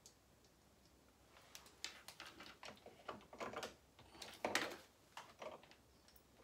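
Scattered light clicks and taps as a cordless drill and screw are set against a metal cabinet hinge on the vanity frame and the hinge is handled. The drill motor is not running.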